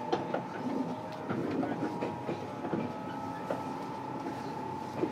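Onboard running sound of a JR 415 series electric multiple unit, heard from inside the motor car: a steady whine over the running noise, with the wheels clicking over rail joints at irregular intervals.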